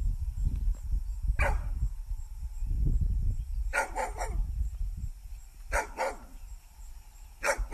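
A dog barking, about seven short barks in small groups: one, then three in quick succession, then two, then one more.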